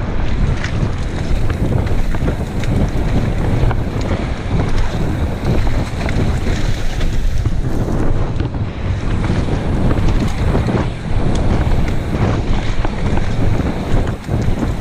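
Wind buffeting the microphone of a camera riding a mountain bike fast down a dirt and gravel trail, with the rush of tyres on the ground and many small clicks and rattles from the bike.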